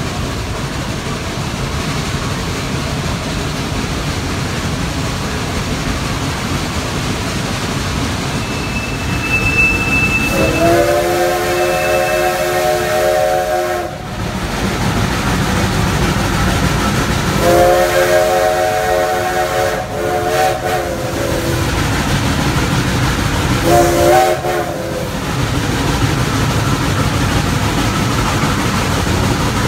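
Steam locomotive running with a steady rumble, sounding its chime whistle in three blasts: two long and one short, the first starting about a third of the way in.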